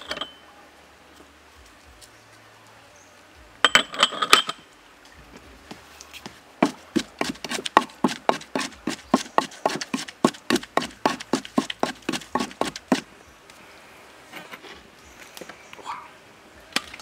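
Wooden pestle pounding chili, garlic and herbs in a wooden mortar: a steady run of sharp thuds at about four a second for some six seconds, after a brief flurry of knocks a few seconds in.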